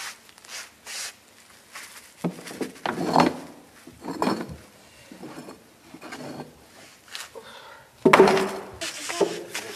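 Hearth stones knocking and clattering as they are handled and lifted out of a plastic tub: a series of separate knocks, the loudest about eight seconds in.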